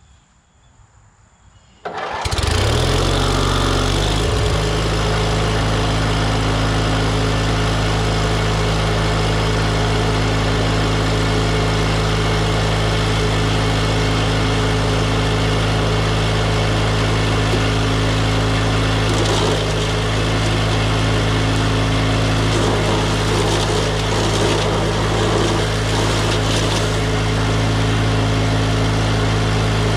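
The DR wood chipper's gasoline engine starting about two seconds in, after a season unused, rising in pitch as it comes up to speed, then running steadily and loudly.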